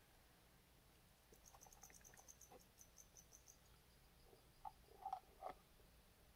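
Near silence: room tone, with a faint run of rapid high chirps for about two seconds starting a second in, and three soft taps near the end.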